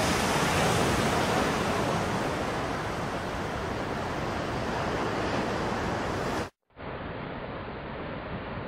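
Ocean surf washing onto a beach, a steady rushing noise with some wind on the microphone. About six and a half seconds in it cuts out for a moment and returns duller and quieter.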